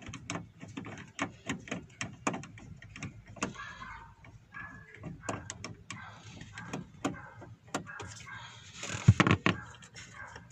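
Repeated sharp clicks of a hand tool working the two small screws that hold a Chrysler Voyager's power-window motor in the door, with a louder, heavier noise about nine seconds in.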